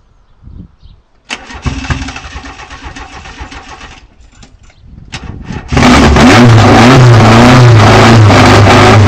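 VAZ 2108's tuned 16-valve engine with four individual throttle bodies being started: the starter cranks for about three seconds, there are a few short tries, then the engine catches about six seconds in and runs loud, its speed rising and falling a little.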